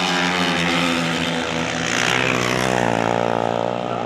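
Racing motorcycle engines running hard during a heat, a loud buzzing engine note that shifts in pitch about halfway through.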